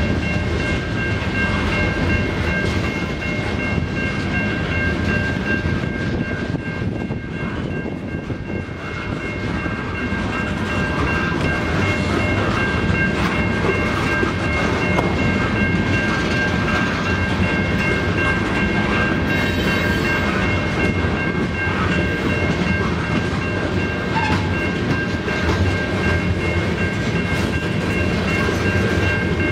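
Freight train of ore hopper cars rolling past, a steady loud rumble and clatter of wheels on the rails, with a steady high-pitched tone chord held throughout.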